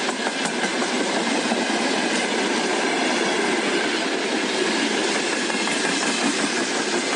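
A train running past, a steady rush of wheel-on-rail noise.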